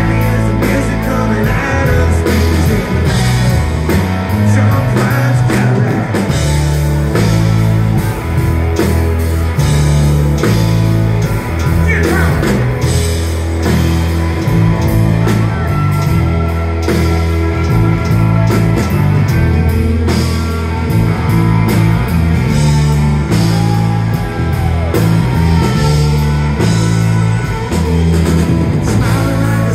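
Live rock band playing a song: electric guitar and drum kit with frequent cymbal hits over a steady bass line, loud and full.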